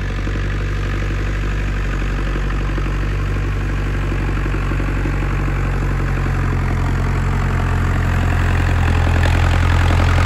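IHC 844 AS tractor's four-cylinder diesel engine running steadily, pulling a grassland roller over a meadow. It draws closer and grows gradually louder.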